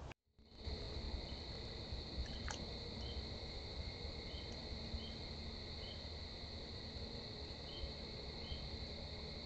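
Crickets trilling in a steady high-pitched chorus, with a second insect chirping faintly about once a second. A single sharp tick comes about two and a half seconds in.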